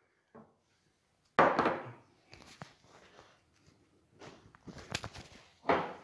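Things being handled on a kitchen counter while baking: a louder knock-and-rustle about a second and a half in and another near the end, with light clicks and taps between.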